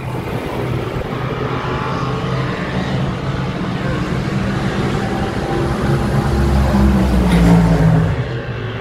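Motor vehicle engine running with a steady low drone. It grows louder with a deeper rumble about six to eight seconds in, then eases off.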